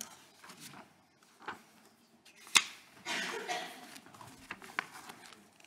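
Paper being handled close to a table microphone: a sharp knock about two and a half seconds in, then a short rustle, with a few faint clicks.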